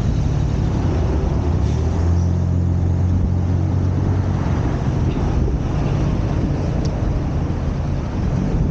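Steady motor-vehicle engine hum with road noise, a low drone that grows stronger about two seconds in and eases after about five seconds.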